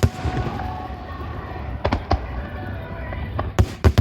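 Aerial fireworks shells bursting: two pairs of sharp bangs, one pair about two seconds in and another near the end.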